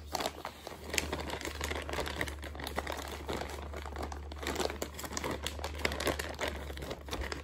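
Plastic zip-top bags crinkling and rustling with irregular crackles as they are handled, one hand pushed inside a bag down into a second bag packed with vegetable shortening.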